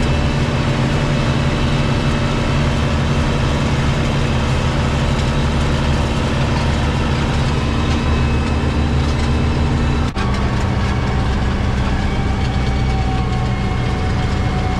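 Farm tractor's engine running steadily, with a brief break about ten seconds in, after which its pitch sits slightly lower.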